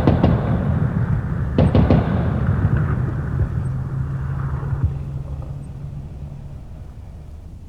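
Artillery fire: a quick cluster of gun reports right at the start and another about a second and a half in, each followed by a long low rumble that slowly fades away.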